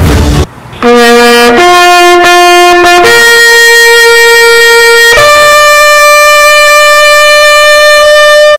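Brass fanfare in the manner of a bugle call: four notes climbing in steps, each held longer than the last, the final one held about three seconds before it cuts off suddenly. It opens with a short, loud crash-like hit.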